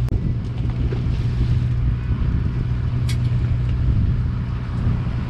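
Fishing boat's engine running with a steady low hum, and a short click about three seconds in.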